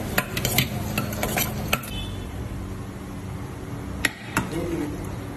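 A metal spoon clinking and scraping against a stainless steel bowl while spiced chicken filling is mixed, with a quick run of clinks in the first two seconds. About four seconds in come two sharp clinks as the spoon is knocked to serve out the filling. A steady low hum runs underneath.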